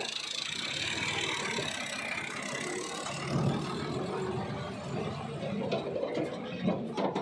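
Massey Ferguson tractor's diesel engine running steadily while its tipping trolley unloads soil and rubble, with a few clicks and rattles near the end.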